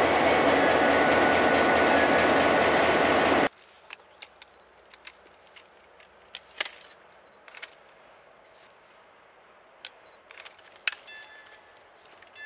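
Two ex-CN EMD FP9A diesel locomotives and their train passing close by, a loud steady sound of running diesel engines and rolling wheels on rail. It cuts off suddenly about three and a half seconds in, leaving quiet with a few scattered small clicks.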